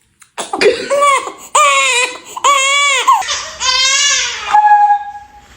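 Baby crying in a run of loud, pitched wails that rise and fall, each under a second long. About four and a half seconds in, the crying gives way to a thin, steady, high whine.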